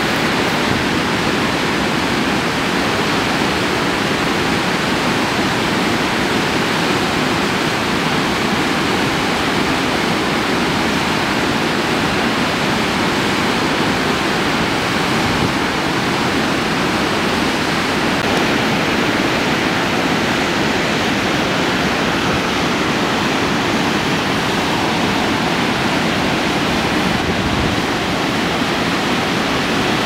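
The 56 m Augrabies waterfall on the Gariep River: a great volume of water pouring over the rock lip and crashing into the ravine below, a loud, steady rushing noise that does not let up.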